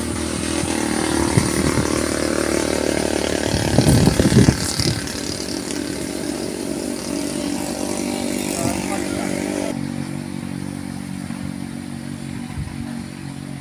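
A small engine running steadily, with a loud rumbling burst about four seconds in. Near the end its note steps down lower and a little quieter.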